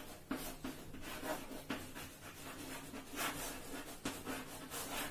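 Chalk scratching and tapping on a blackboard as a word is written by hand, in an uneven run of short strokes.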